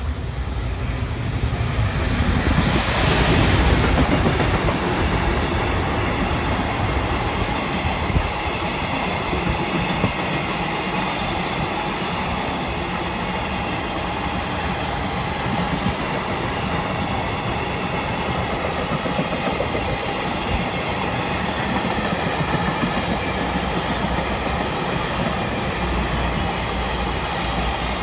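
Freight train passing, loudest about three seconds in, then a long steady rolling of wagons on the rails.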